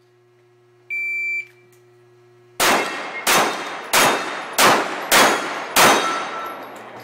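A shot timer's start beep, then a pistol firing six rapid shots about two-thirds of a second apart at a Texas Star steel target, knocking its plates off.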